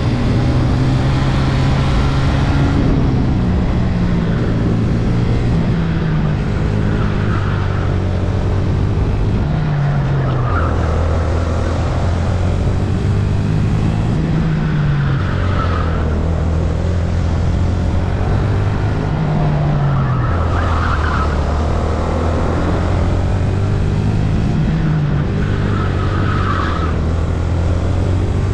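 A VT250 rental kart's engine heard onboard at racing speed. The revs climb along each straight and drop back into each corner, again and again, and the tyres squeal briefly through several of the corners.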